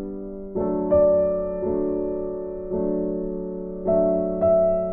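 Background music of soft keyboard chords, a new chord struck about once a second and each fading away before the next.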